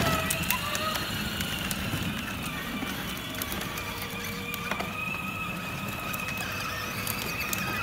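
Electric drive motors of a battery-powered ride-on toy Ford Ranger pickup whining steadily as it drives, over a low rumble of its plastic wheels on asphalt.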